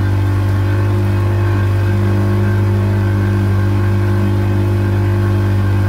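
Small boat's outboard motor running steadily at cruising speed, a constant low hum.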